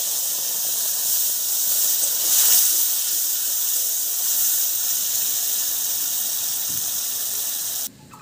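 Wet spice paste of ground green chilli, ginger and spice powders sizzling loudly in hot oil in a wok as it is fried and stirred, the water in the paste spitting and steaming in the oil. The sizzling stops abruptly near the end.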